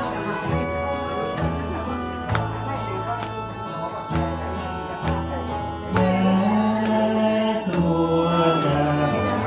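Karaoke backing track playing, with a steady beat and a repeating bass line. About six seconds in, a man starts singing into a hand-held microphone over it, holding long notes.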